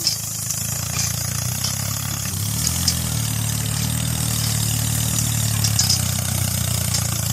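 Tractor engine running steadily at a low pitch, its note shifting slightly about two seconds in and again near the end.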